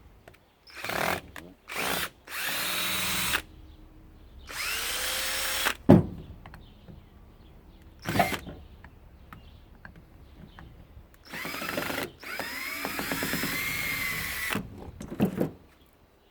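Power drill driver run in several bursts, its motor whining up in pitch as each starts, the longest near the end: backing out the screws of an electric string trimmer's housing. A sharp knock about six seconds in.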